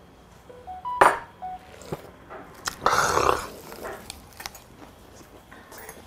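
A man downing a shot of soju: a sharp knock about a second in, then a loud rasping exhale after the swallow, followed by small clicks as he starts chewing a mouthful.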